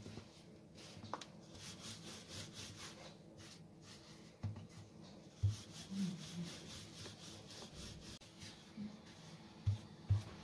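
Wooden rolling pin rolling out paratha dough on a floured stone countertop: soft repeated rubbing strokes back and forth, with a few soft thumps around the middle and near the end.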